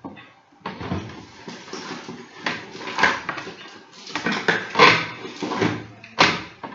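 Clattering, knocking and rustling of small objects being handled and moved about, with a sharp knock near the end.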